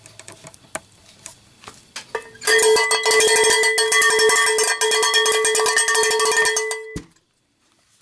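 Cowbell struck rapidly for about four and a half seconds, ringing steadily, then cut off abruptly. A few faint clicks come before it.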